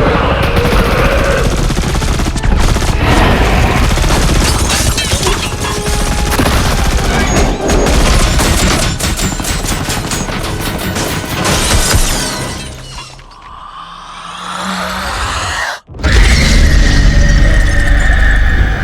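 Action-film soundtrack: music score mixed with rapid gunfire, crashes and shattering. It drops away briefly with falling swooshes near the end, cuts out for an instant, and comes back loud.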